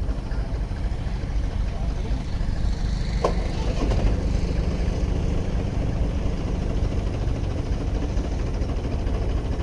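Tractor diesel engine running steadily at a constant speed while driving a water pump, a low, even engine note. A brief sharp click comes about three seconds in.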